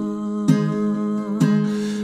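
Live acoustic music: a man's voice holds a sung note over a strummed steel-string acoustic guitar, with two sharp strums about half a second and a second and a half in.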